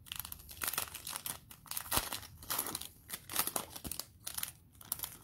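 Cellophane wrapper of a Panini Mosaic cello pack of football cards crinkling and crackling as gloved hands handle it, in quick irregular snaps with the loudest about two seconds in.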